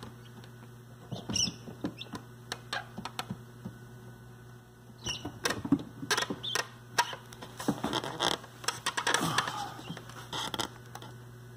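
Newly hatched guinea fowl keets scrabbling and pecking on the incubator floor and shells, giving scattered clicks and scratches with a few short high peeps, busiest about two-thirds of the way in, over a steady low hum.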